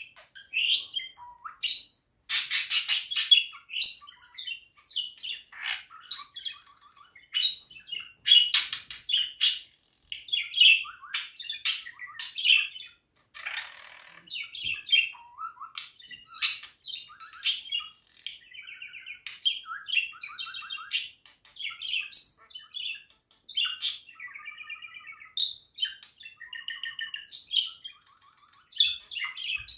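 Budgerigar chattering: a long run of quick, high chirps and warbles broken by short pauses, turning to a buzzy, pulsing warble near the end.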